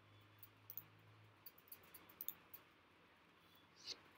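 Faint computer mouse clicks, several light clicks over the first couple of seconds, against near silence.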